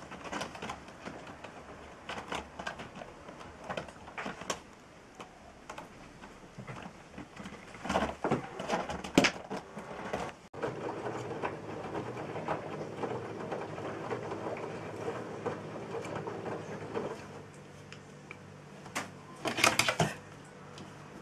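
Kittens' claws scraping and ticking on a scratching post as they climb it, in scattered short bursts. About halfway through, a front-loading washing machine takes over, running with a steady hum, with a brief louder clatter near the end.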